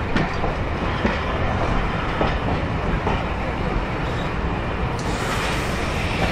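Rake of passenger coaches rolling slowly through a station, with a steady low rumble and the wheels clicking over rail joints about once a second.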